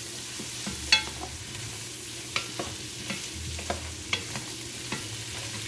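Wooden spoon stirring lobster tails and baby potatoes in a metal pot, knocking against the pot several times, the sharpest knock about a second in, over a low steady sizzle of the butter sauté.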